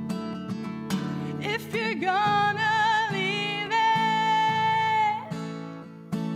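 Acoustic guitar strummed in a steady rhythm while a singer holds a long wavering note with vibrato from about a second and a half in until about five seconds in.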